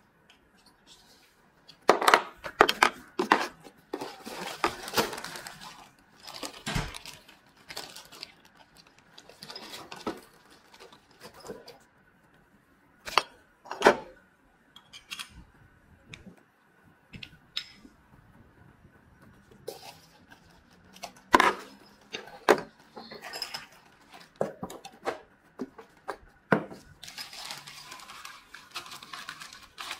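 Small metal parts of a replacement aluminium-window handle and hand tools clicking, clinking and scraping as the handle is put together: irregular sharp clicks and knocks with a few short stretches of scraping.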